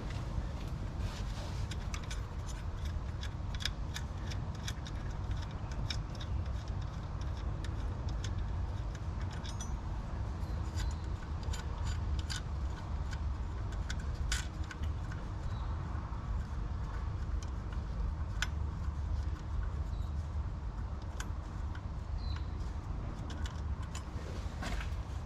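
Socket wrench and hand tools at work on the alternator bracket bolts of a 5.4 three-valve V8: scattered small metallic clicks and clinks, over a steady low rumble.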